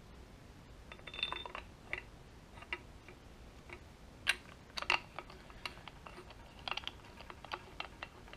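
Small metallic clicks and taps of an old factory LS1 crank bolt and its washer being handled and started by hand into the crankshaft snout, with a short rustle about a second in.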